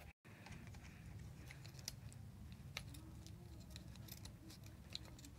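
Scissors cutting through denim: a few faint, sharp snips spaced about a second apart over a low background hum.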